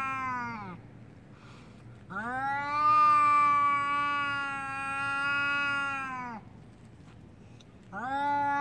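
Cat caterwauling in anger before a fight: a long drawn-out yowl that slides down in pitch and stops just under a second in, then a second long yowl of about four seconds that rises at the start, holds steady and slides down at the end, and a third yowl starting near the end.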